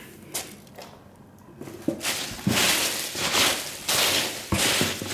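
Hands rummaging through foam packing peanuts in a cardboard box: a loose rustling that starts about two seconds in and comes in several loud swells, with a few light knocks against the box.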